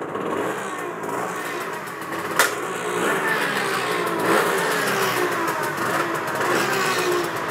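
Small two-stroke engine of a Simson moped running and being revved, its pitch rising and falling, with a sharp click about two and a half seconds in.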